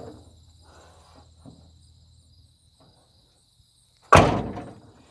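The freshly painted door of a 1988 Ford F-150 cab being swung shut about four seconds in: a single loud slam with a short ring, after a few faint handling clicks. The door is being closed to check its fit on newly adjusted hinges.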